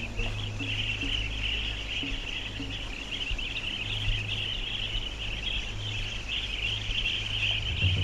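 A large flock of migratory birds calling all at once: a dense, continuous high chatter, over a steady low rumble.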